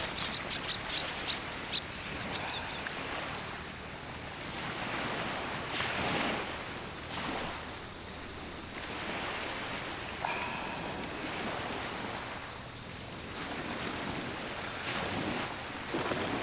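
Sea waves washing on the shore, the surf swelling and fading every few seconds. A quick run of light clicks in the first two seconds.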